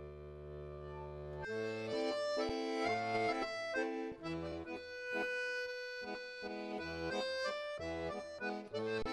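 Background music: a held chord that, about a second and a half in, gives way to a brisk rhythmic tune over a bouncing bass line.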